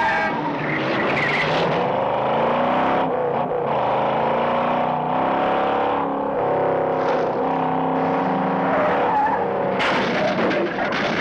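Big V8 engines of the chasing Ford Mustang GT and the Dodge Charger revving hard in a high-speed chase, the pitch climbing and dropping again and again through the gears. Tyres squeal near the end.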